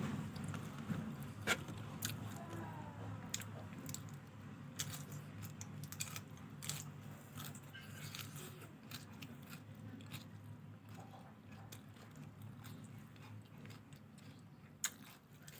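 A person chewing and eating fried rice close to the microphone, with scattered small crunches and clicks; the sounds grow a little fainter toward the end.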